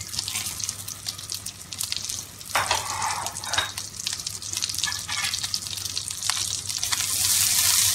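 Carom seeds (ajwain) crackling and sizzling in hot ghee in an iron kadai, with many small pops. The sizzle grows louder and hissier near the end. A steady low hum runs underneath.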